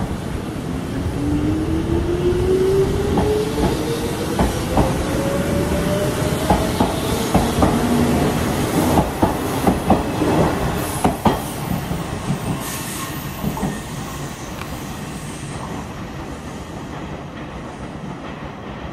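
Electric commuter trains pulling out of a station together: a motor whine climbs steadily in pitch as a train gathers speed. A run of wheel clacks over the rail joints follows as the cars pass close, and the rumble then fades as the trains draw away.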